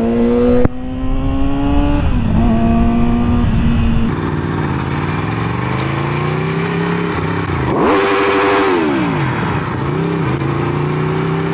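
Sport motorcycle engine, recorded up close from the rider's position, pulling through the gears: its pitch climbs, drops at each gear change and climbs again. About eight seconds in it revs up sharply and falls away, with a brief rush of noise.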